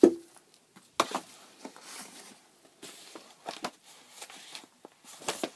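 Rummaging through the contents of a hope chest: scattered knocks, clicks and rustles of items being handled. The loudest are a thump at the very start and a knock about a second in, with a small cluster of clicks near the end.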